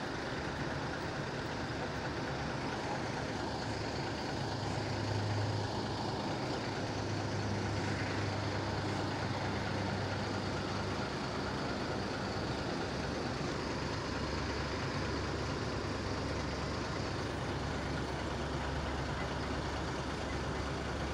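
Intercity coach's diesel engine idling with a steady low hum, the hum shifting to a lower pitch about halfway through.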